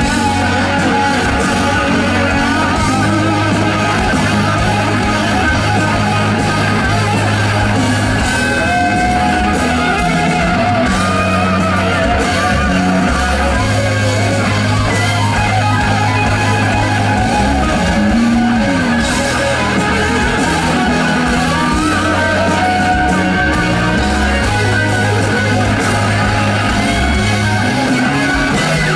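Live rock band playing loud with no singing: two electric guitars trade lead lines with bends and vibrato over steady bass and drums.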